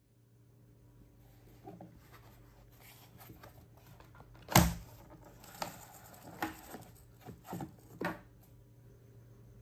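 Clicks and knocks from a Bosch Readyy cordless vacuum's brush roller and floor head being handled and taken apart: a string of separate knocks, the loudest about halfway through.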